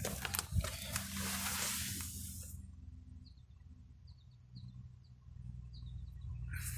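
Rustling and handling noise with a few knocks while someone moves with a handheld camera and gets into a car, lasting about two and a half seconds. Then it goes quiet apart from a low steady hum and a few faint high chirps.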